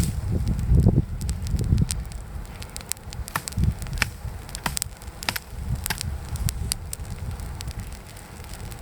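Pine-wood campfire crackling, with many sharp irregular pops over a low rumble that is loudest in the first couple of seconds.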